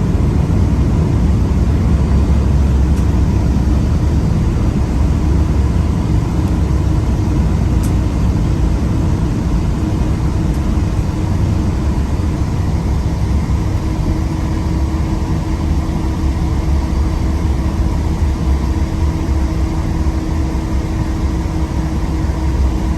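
Boeing 777-200ER cabin noise from a window seat: a loud, steady low rumble of the engines and airflow, with a faint steady hum joining about halfway through.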